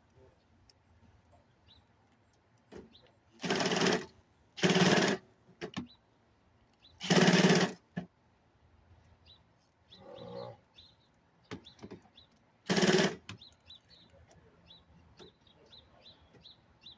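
Power drill driving in short bursts, four times, backing out fasteners during a microwave oven teardown.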